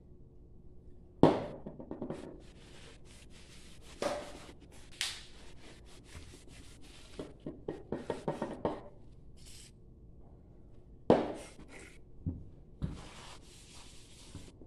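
Freshly honed engine cylinder being handled and wiped on a workbench: a handful of sharp knocks as the cylinder and tools are set down and moved, with scuffing and rubbing noises in between as a rag works the bore.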